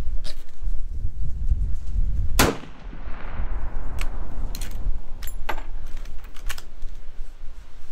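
A single shot from a 1975 Marlin 336 lever-action rifle in .30-30 Winchester about two and a half seconds in, echoing for about a second. A handful of sharp metallic clicks follow over the next few seconds as the lever is worked to eject the spent case and chamber the next round.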